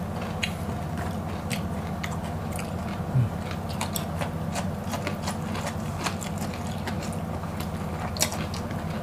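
Two people biting and chewing raw okra pods: scattered crisp crunches and wet clicks of mastication, over a steady low hum.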